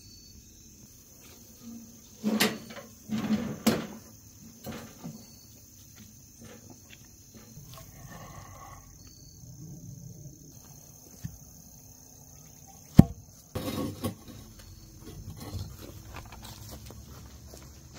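Insects calling steadily with a high, even drone, over irregular knocks and scrapes as a metal cam buckle and strap are handled and concrete stone pavers are lifted and set down on an ATV's rack. A cluster of loud knocks comes a couple of seconds in, and the sharpest single knock, followed by a short clatter, comes about 13 seconds in.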